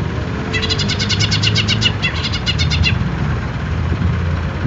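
Green leafbird (cucak ijo) calling a rapid, high trill of about ten notes a second, in two runs that together last about two and a half seconds, starting about half a second in. A steady low hum runs underneath.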